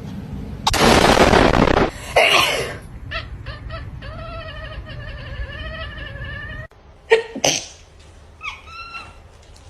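Cats sneezing: a loud sneeze about a second in and another just after two seconds, then a long wavering call. Near the end come two short sharp sneezes and a brief high-pitched call.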